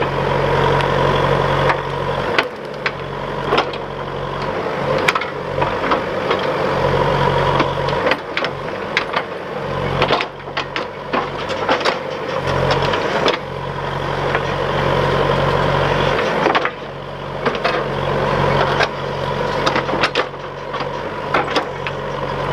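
An engine running steadily, with repeated knocks, clanks and crunching throughout, typical of machinery at work.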